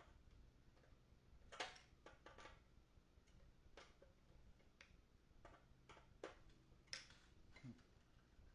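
Irregular light clicks of a screwdriver working screws back into place, about ten in all, the loudest about a second and a half in.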